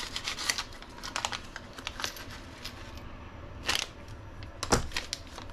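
Hands handling small RC shock parts and a plastic parts bag on a workbench: a quick run of light clicks and crinkles, then a louder rustle a little after halfway and a sharp knock on the bench about a second later.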